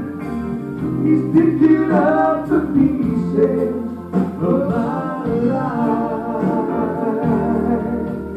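Male voices singing a gospel song through microphones and a sound system, over an instrumental accompaniment.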